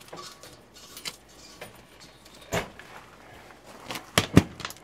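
Light handling clicks and clacks of metal hardware, ending in two sharp clunks near the end as an RV's exterior door latch is worked.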